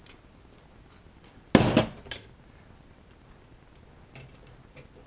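Light metal clicks of a hand tool working on the metal plate and screws of a Kaba Simplex 1000 pushbutton lock being taken apart. A sharp metallic clatter comes about a second and a half in, with a smaller one half a second later.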